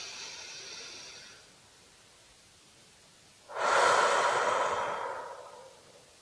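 A woman's slow, deep belly breath: the end of a soft inhale fading out about a second and a half in, a pause, then a longer, louder exhale starting about halfway through and tapering off near the end.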